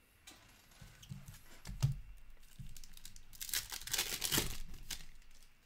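A 2018-19 Upper Deck Ice hockey card pack's wrapper being torn open and crinkled by hand: a few short rips and rustles, the loudest a stretch of crackling about three and a half to four and a half seconds in.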